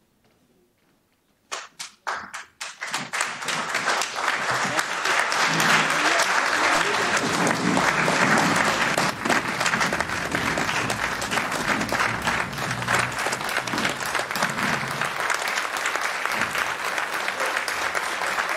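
Room of people applauding: a few separate claps about a second and a half in, quickly building into steady, sustained applause.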